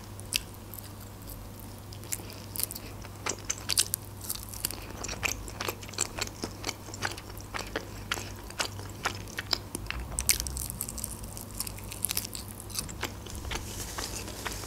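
Close-miked chewing and biting of a chicken wing: a steady run of small crisp clicks and crunches from the mouth.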